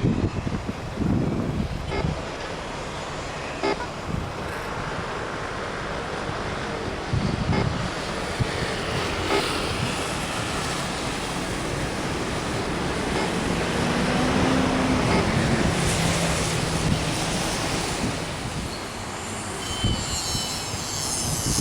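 Aircraft jet engine noise, a steady rush with a low hum, swelling to its loudest about fifteen seconds in and then easing off as the plane passes.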